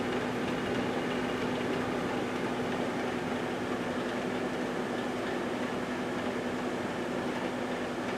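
1978 GE Dual Wave microwave oven running: a steady electrical hum with fan whir.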